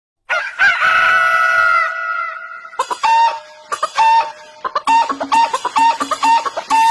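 A rooster crows once, one long call that sags slightly at the end. About three seconds in, a light tune of short repeated notes starts up with a steady beat.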